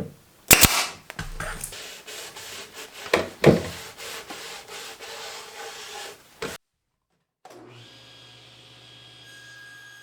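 Wooden boards being handled: sharp knocks of wood on wood and a scraping, rubbing noise, with a second loud knock a few seconds in. After a sudden cut comes a steady low hum.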